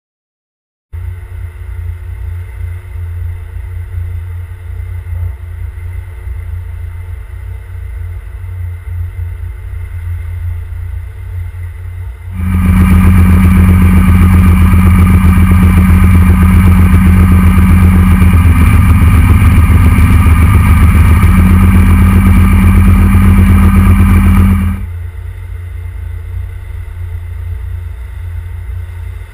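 A fast rescue boat's engine running at speed, heard loud from on board for about twelve seconds in the middle, its steady note shifting briefly partway through. Before and after, a quieter steady engine rumble.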